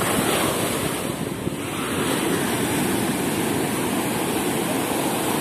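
Ocean surf breaking and washing up on a sandy beach: a steady rush of water that swells a little louder about two seconds in.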